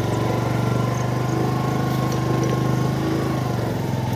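Small engine running steadily at an even, unchanging pitch.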